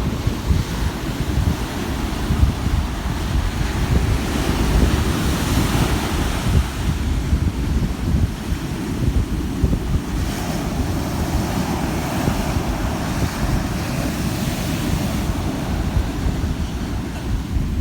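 Ocean waves washing in, with a hiss that swells and fades, under heavy wind buffeting on the microphone that makes a constant low rumble.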